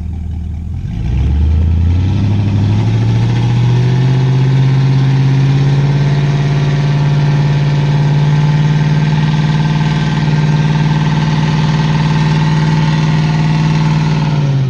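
Pickup truck engine revving up about a second in and held at high revs under load while pulling a truck stuck in mud on a tow strap, then dropping back right at the end.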